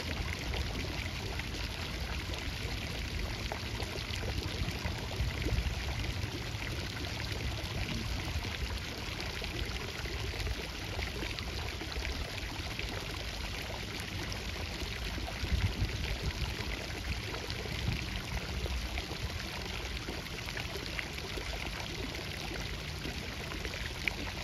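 Steady rush of flowing, pouring water.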